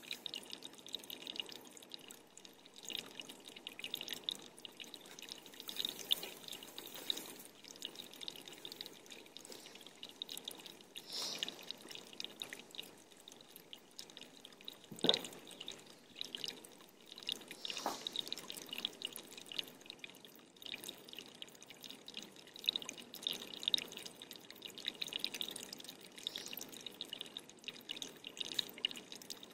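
Water dripping: an uneven patter of small drips and ticks, with a sharper, louder drip or knock about fifteen seconds in and another about three seconds later.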